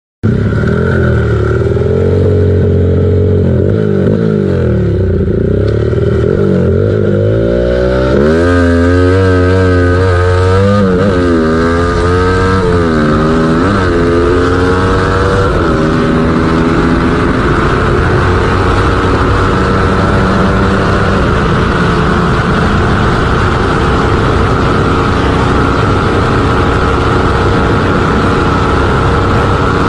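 A tuned Yamaha Y15ZR's single-cylinder four-stroke engine, bored to 68 mm with a custom cam and ported head, accelerating flat out through the gears. In the first half its pitch rises and drops back at each upshift. It then holds high revs in top gear, climbing slowly as the bike nears 190 km/h.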